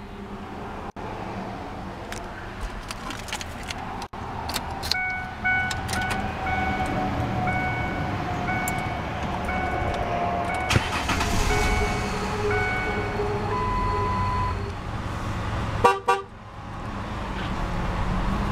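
Ford Explorer Sport Trac's 4.0-litre SOHC V6 idling steadily after start-up. From about five seconds in, a two-tone dashboard warning chime repeats for several seconds. Near the end a short horn toot stands out as the loudest sound.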